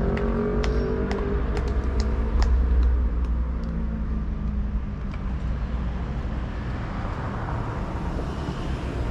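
A motor vehicle runs with a steady low rumble that swells about two to three seconds in and then eases off. Over the first few seconds there are several sharp knocks of tennis balls being struck.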